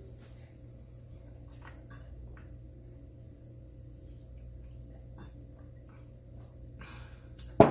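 Faint small clicks over a steady low hum, then near the end one sharp knock as a glass bottle is set down on the table.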